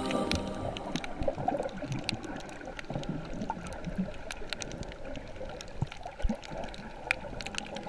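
Underwater ambience picked up by a submerged camera: a muffled, churning wash of water with scattered sharp clicks and crackles.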